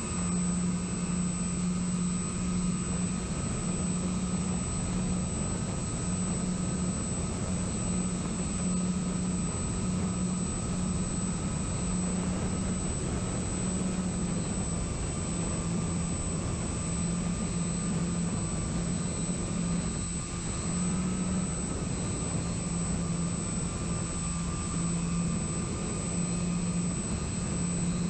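Onboard sound of an electric radio-control plane in flight: a steady propeller drone with a fainter higher motor whine over wind rush. The pitch dips slightly about halfway through and rises briefly a few seconds later.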